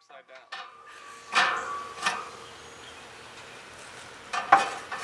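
Metal cooking grates clanking against each other and the grill's rim as they are set into a kamado grill: a few sharp clanks, the loudest near the end.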